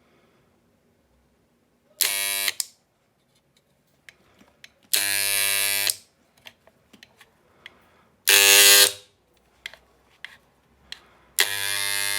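Moser mains-powered vibrating hair clipper switched on four times in short runs, buzzing loudly each time. The third run is the loudest, and the last carries on to the end. The buzz is the excessive noise the repair is meant to cure.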